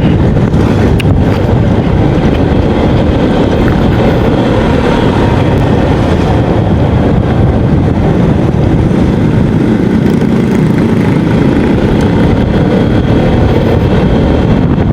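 Riding noise on a moving Yamaha XMAX 250 scooter: wind rushing over the microphone mixed with engine and road noise, a loud, steady, low rumble.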